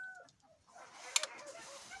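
The tail of a rooster's crow, a long held note that breaks off just after the start, then chickens clucking, with one sharp click about a second in.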